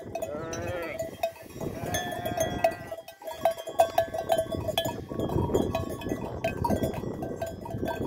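Sheep bleating twice in the first few seconds over the clanking of the flock's neck bells, which ring on throughout. Wind buffets the microphone in the second half.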